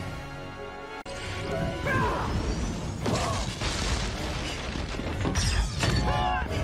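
Film fight soundtrack: a music score broken off about a second in by a string of crashes, impacts and swooping energy-blast effects as magic is hurled.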